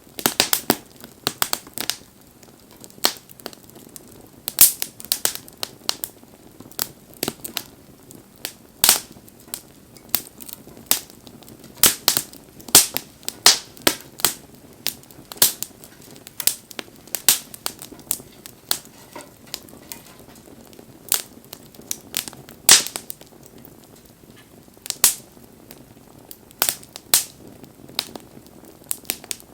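Wood fire burning and crackling, with irregular sharp pops and snaps from the burning wood, several a second at times, over a faint steady hiss.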